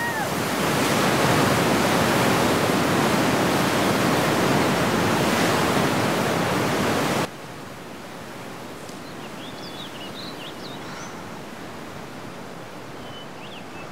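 Loud rush of flood water surging, which cuts off suddenly about seven seconds in. A quieter steady outdoor hiss follows, with a few short bird chirps.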